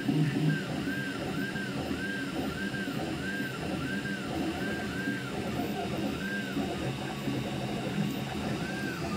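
FDM 3D printer printing with its cooling fans off: the stepper motors whine in short rising-and-falling sweeps, about two a second with occasional gaps, as the printhead moves back and forth.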